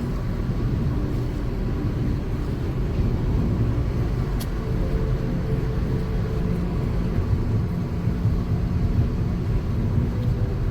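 Steady low rumble of a car, heard from inside the cabin, with one faint click about four seconds in.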